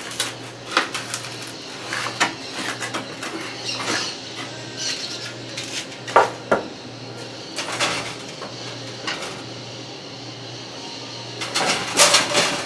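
Wooden boards and a post knocking and clattering as they are handled and worked loose, in scattered knocks with a denser burst of clatter near the end.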